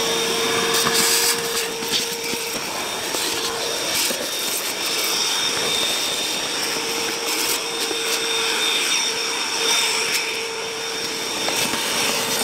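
Vacuum cleaner running steadily with a constant whine, its hose nozzle sucking leaves and dirt out of a van's plenum under the windscreen, with a few short clicks.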